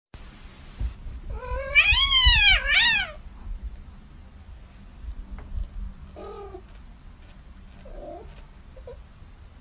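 A cat yowling: a long, loud meow that rises and falls in pitch about a second and a half in, a shorter one straight after, then a few faint short meows later.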